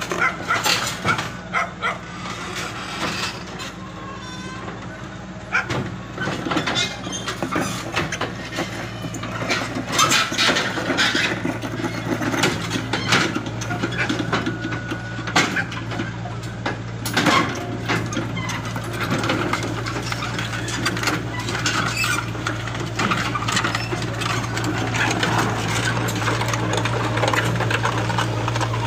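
Hitachi Zaxis 48U mini excavator's engine running steadily as the machine tracks down steel loading ramps off a truck, with repeated metal clanks and knocks from the tracks on the ramps. The engine hum grows stronger about ten seconds in.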